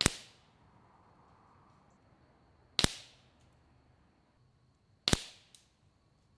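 Three shots from an mrodair Varmint Airmax .22 PCP air rifle, about two and a half seconds apart, each a sharp crack with a short fading tail.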